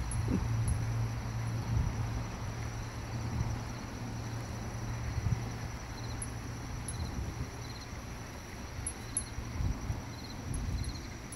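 Insects chirping faintly in short repeated trills, over a low steady rumble.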